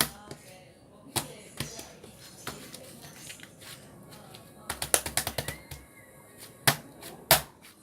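A series of sharp clicks and taps, irregular, with a quick run of clicks about five seconds in and two louder single taps near the end.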